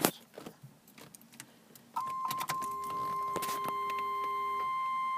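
Car keys jingling with small clicks as the ignition key is handled and turned; about two seconds in, a steady high electronic warning tone comes on in the 1988 Camaro's dash and holds, with a lower hum for about two seconds alongside it.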